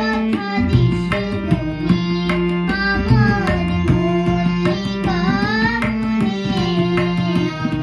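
Tabla played in a steady rhythm under a young girl singing, with a harmonium holding sustained reed notes beneath her voice.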